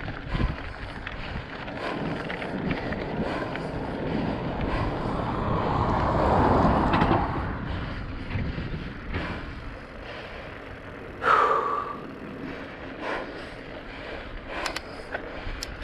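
Wind rushing over the microphone, with road noise from riding along the asphalt, swelling to its loudest about six to seven seconds in. A brief sharp sound with a short high tone about eleven seconds in, and a few light clicks near the end.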